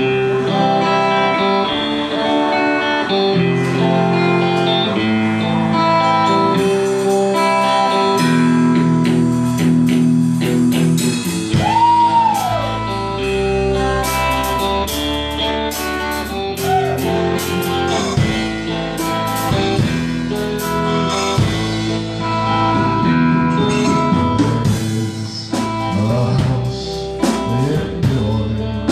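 Live band playing electric guitars in a blues-rock style, with long held notes and a lead note bent up and back down about halfway through, over drums and cymbals.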